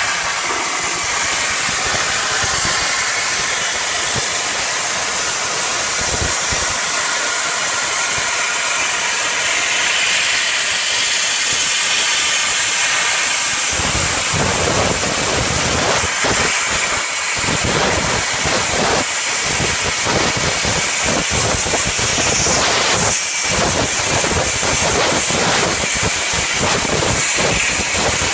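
CNC plasma torch cutting metal plate: a loud, steady hiss of the arc and gas jet, turning rougher and crackly from about halfway through.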